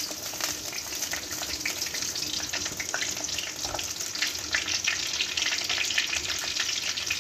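Chopped garlic sizzling and crackling in hot oil in a black karahi, stirred with a wooden spatula. The garlic is being fried until it turns golden.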